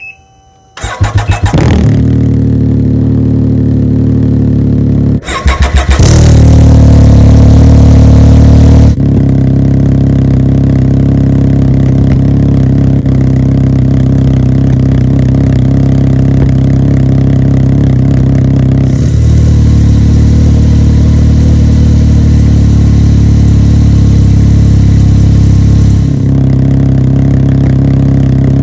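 Can-Am Ryker 900 ACE's three-cylinder engine is cranked by its starter and catches about a second in, heard through a Silber Turbo muffler with its baffle removed. It drops out about five seconds in and is cranked again, runs louder and higher for a few seconds, then settles into a steady idle.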